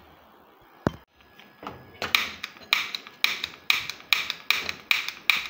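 Long lighter wand clicking over and over at a gas stove burner, about three sharp clicks a second after a single click near the start, without lighting it: no gas is reaching the burner.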